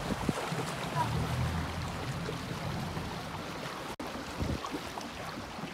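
Speedboat engine throttled back to a low idle as the boat slows to come in to shore, under an even hiss of water noise.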